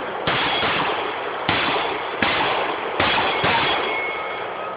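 Five pistol shots in about three seconds, each with a long echoing tail. Thin metallic ringing follows, which fits steel targets being hit.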